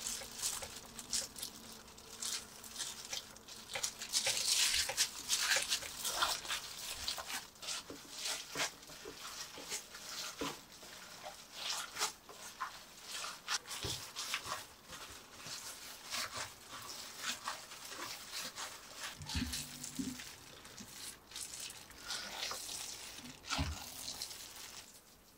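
Gloved hands mashing and mixing homemade doenjang (fermented soybean paste) in a stainless steel pot: irregular wet squelching with the crinkle of plastic gloves.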